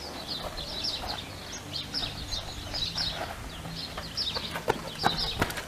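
Small birds chirping steadily in quick short calls. Near the end come a few crunching footsteps on gravel.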